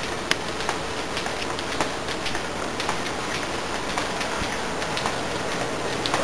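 Footsteps on a hard corridor floor, about two a second, over a steady hiss.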